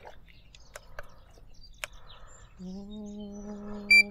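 Brief bird chirps. A steady low hum comes in about two-thirds of the way through, and a short, loud electronic beep sounds near the end.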